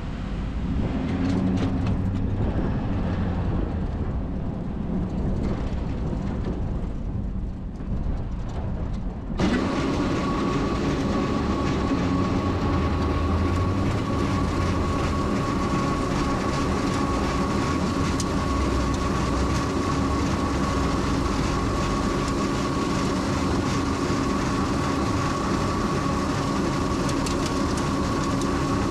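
Sander truck running, heard from inside the cab: a steady engine and road rumble. About nine seconds in the noise jumps suddenly louder and brighter, and a steady whine comes in and holds.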